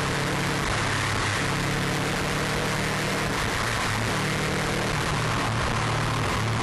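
Subaru Impreza WRX Type RA's turbocharged flat-four, remapped to about 300 bhp with a stainless exhaust, running at speed on a race circuit. The engine note shifts in pitch a few times over a steady rush of wind and road noise.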